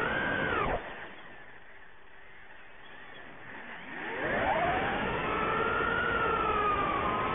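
ImmersionRC Vortex 150 Mini quadcopter's electric motors and propellers whining under throttle. The whine drops sharply in pitch and goes quiet a little under a second in as the throttle is cut. About four seconds in it rises again in a sweeping glide as the throttle comes back up, and then holds steady.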